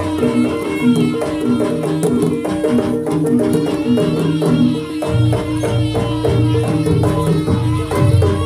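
Javanese jaranan music played on gamelan: tuned metal percussion repeating a fast pitched figure over drums, with a wavering melody line on top. Heavier low drum strokes come in about five seconds in.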